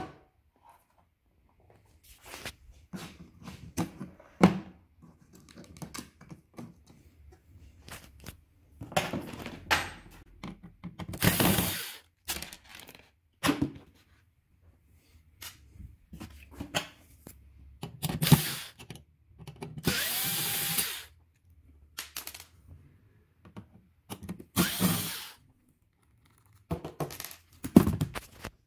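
Workbench handling of an opened flat-screen TV: scattered clicks and knocks with short noisy bursts of a second or so, the longest and steadiest about twenty seconds in.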